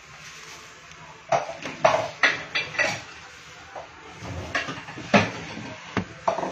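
Pots and kitchen utensils clattering: a quick run of knocks and clinks starting about a second in, then a few more.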